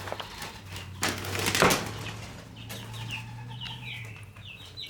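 Young chicks peeping in a run of short, high, falling chirps from about halfway in, after two brief rustling bursts about a second in, over a low steady hum.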